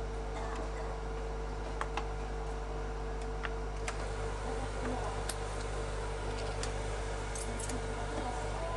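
Scattered light clicks of a kitchen knife on a cutting board, irregular and a second or so apart, over a steady background hum.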